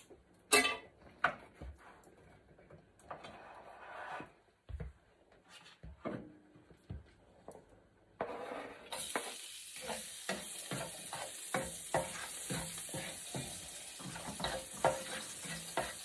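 Frying pan of hot oil on a gas burner: a few knocks and scrapes of a spatula and plate, then about eight seconds in, food is pushed into the pan and it starts sizzling steadily, with the spatula tapping and scraping against the pan as the food is stirred.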